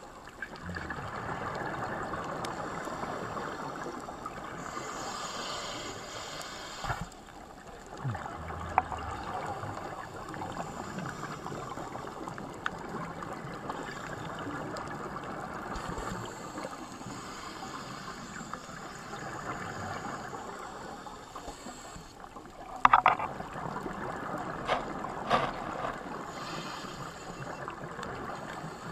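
Underwater ambience: a steady watery rushing noise, broken by a few sharp clicks and knocks, the loudest about 23 seconds in.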